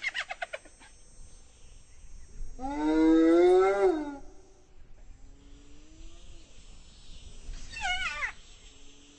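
Spotted hyena calling: a quick burst of rapid cackling pulses at the start, then a long, loud call that rises and then falls in pitch about three seconds in. Softer low calls follow, and another falling cackle comes a little before the end.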